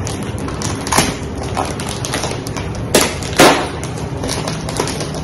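A plastic-wrapped tablecloth package being handled on a counter: crinkling of the plastic wrapper with several sharp taps and knocks, the loudest two about three seconds in.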